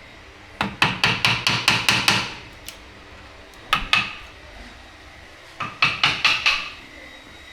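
A woodcarver's hammer tapping a chisel, with sharp, ringing taps in quick runs. There is a run of about eight taps starting half a second in, two taps near the middle, and about five more a little past three-quarters of the way through.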